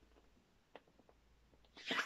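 Mostly quiet, with one faint click under a second in, then the papery rustle of a picture book's page being handled and turned, starting near the end.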